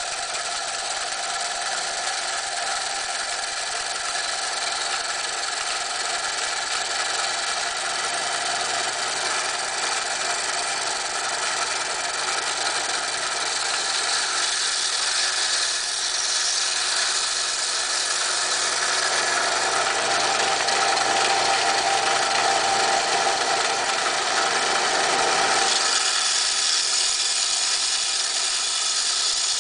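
Inland DFS-100 diamond band saw running steadily with a whine. Its sound grows fuller and a little louder through the middle stretch as a piece of coral is pushed into the blade, then eases a few seconds before the end.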